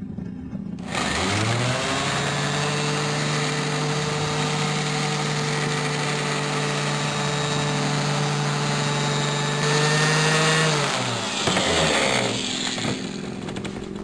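Electric random orbital sander starting about a second in and spinning up to a steady whine as it buffs heat bluing off a chrome exhaust pipe with polishing paste. It winds down with a falling pitch near the end.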